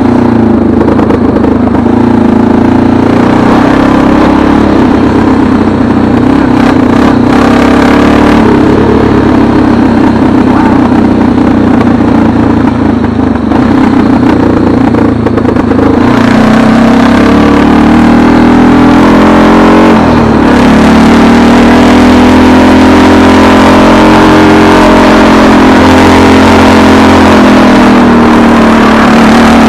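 An engine running steadily, its pitch sagging and rising again slowly in the second half.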